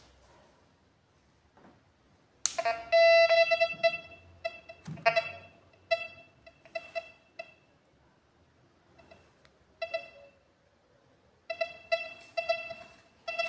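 Optimum Detech Neo Plus VLF metal detector's speaker giving a run of short electronic beeps at one pitch as the unit powers up and its settings are adjusted. A click comes first, about two and a half seconds in. The beeps come in clusters, fall mostly silent for a few seconds past the middle, then start again near the end.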